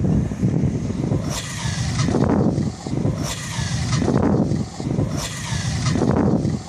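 Kyosho Mad Force radio-controlled monster truck driving over loose sand, its motor surging in repeated bursts about once a second.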